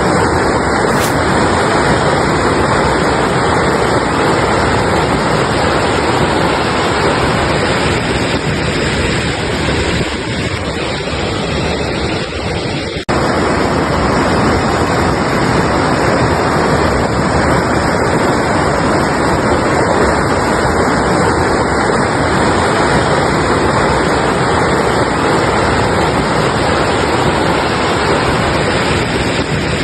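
Mountain river rushing over rocks: a steady, loud, full wash of water noise. About 13 seconds in it dips briefly, then cuts back to full level abruptly.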